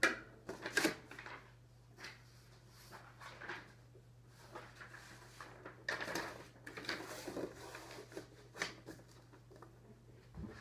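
Scattered rustling and light knocks from a cello being shifted and handled between passages, over a faint steady low hum. The loudest knock comes right at the start.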